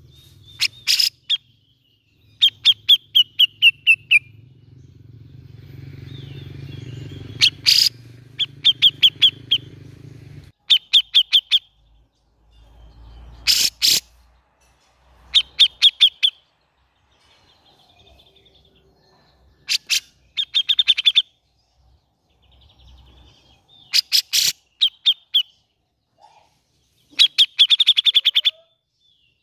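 Grey-cheeked bulbul (cucak jenggot) calling in a string of short bursts of rapid chattering notes, each burst a second or two long, about nine in all, some sliding down in pitch. A low hum runs under the first ten seconds.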